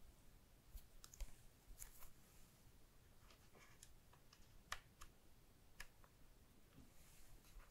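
A scatter of faint, irregular clicks and taps from fingers and nails handling a Google Pixel 6 smartphone, touching its glass back and aluminium frame.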